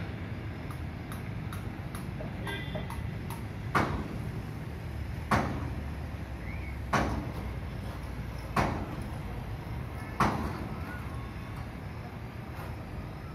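Workshop hammering: five heavy, evenly spaced blows, about one every second and a half, starting about four seconds in, over a steady low rumble.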